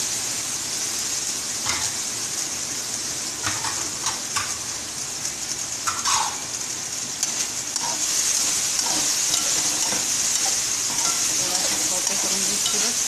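Chicken masala with freshly added sliced capsicum sizzling in an aluminium kadai, with a steady high hiss. A slotted metal spatula scrapes and clinks against the pan, the sharpest clink about six seconds in. The sizzle grows louder from about eight seconds in as the stirring picks up.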